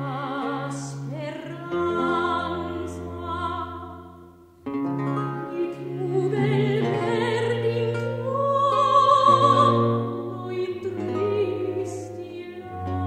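Early-Baroque Italian song: a soprano singing long notes with vibrato over a basso continuo of sustained low bass notes and plucked chords. The sound thins almost to nothing about four seconds in, then a new phrase begins.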